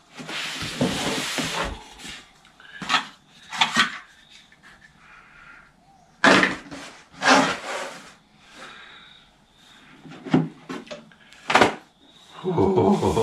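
Unpacking a Starlink dish kit: a long rustle of paper and packaging at the start, then scattered light knocks, clicks and scrapes as the stand and dish are handled against the cardboard box.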